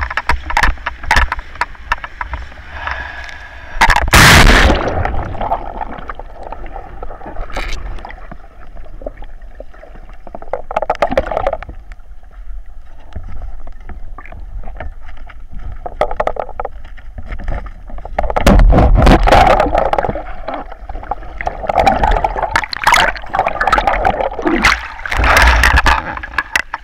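Sea water splashing and gurgling against a camera held at the surface and dipped under it, with loud splashes about four seconds in and again at around nineteen seconds, and a muffled, quieter stretch in the middle.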